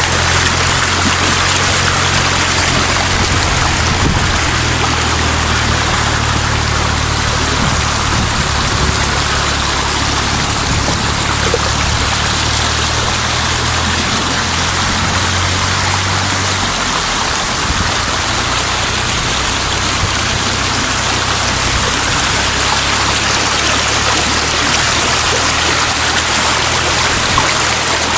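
Stream water rushing steadily over rocks, a loud even rush, with a low hum underneath that changes about two-thirds of the way through.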